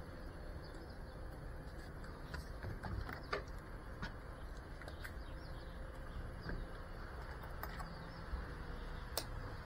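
Faint background noise with a low rumble and a dozen or so light, scattered clicks. No drone motors are running.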